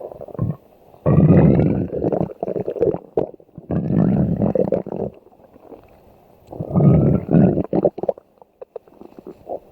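Loud stomach growling: three long gurgling rumbles of one to two seconds each, separated by short lulls, with thin rising squeals running through the rumbles.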